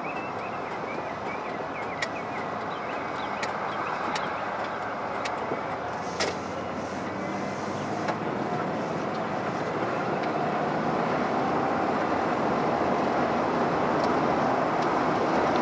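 Road noise inside a moving car: tyres and engine running as the car picks up speed, growing steadily louder. A few short knocks or clicks come in the first half, the sharpest about six seconds in.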